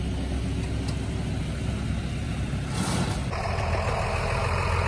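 An engine idling with a steady low rumble, with a short hiss about three seconds in.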